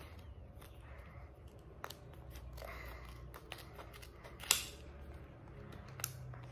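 Scissors snipping a plastic blind-bag wrapper, faint small clicks with one louder sharp snip about four and a half seconds in.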